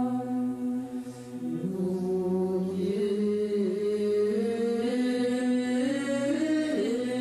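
Orthodox liturgical chant: voices hold a steady low drone, and a slow melody line enters over it about a second and a half in, moving in small steps.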